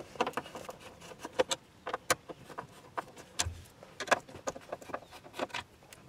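Irregular small clicks and ticks of a screwdriver backing Phillips screws out of a Jeep Cherokee XJ's plastic lower dash control panel.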